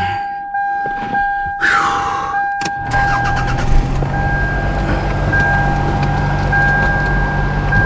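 Small pickup truck's engine starting about three seconds in and settling into a steady idle, after a thump, with a steady high electronic warning tone sounding throughout.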